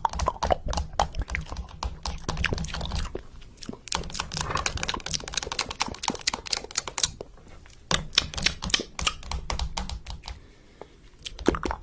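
Rapid, irregular clicking and tapping in flurries, with a couple of short pauses, over a low hum at times.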